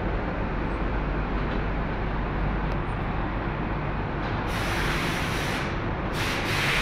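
Steady hum and rush of powder coating equipment and booth extraction running, with loud hissing bursts of compressed air, the first about four and a half seconds in and another near the end.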